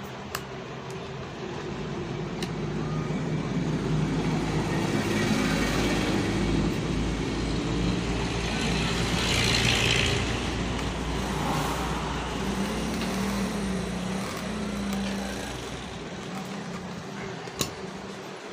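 A motor vehicle's engine going by, swelling to a peak about ten seconds in and then fading away, with a wavering low hum. A few sharp clicks of plastic parts being handled.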